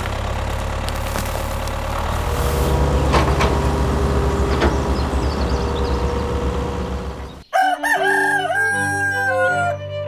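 A steady low engine hum with scattered clicks, growing louder about two seconds in, cuts off suddenly about seven seconds in. A rooster crows right after.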